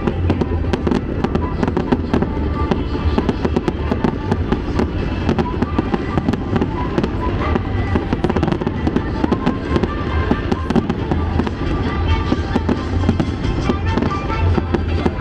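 Fireworks going off in quick, dense succession, a steady stream of bangs and crackles, over loud show music with a deep bass from a pyro-musical display.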